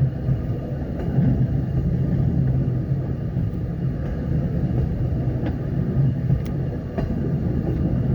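Steady rumble of a train moving slowly at about 7 miles an hour, with a few sharp clicks near the end.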